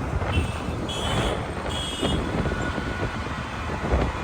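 Wind buffeting the microphone and road rumble while riding a scooter, with three short high electronic beeps in the first two seconds.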